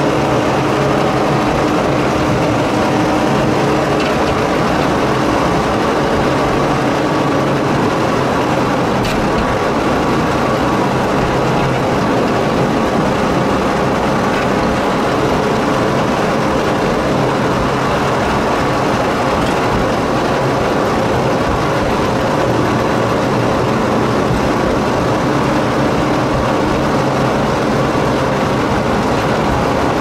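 Narrow-gauge forest railway train running steadily: the diesel locomotive's engine drone over wheel and rail noise, with a few faint clicks.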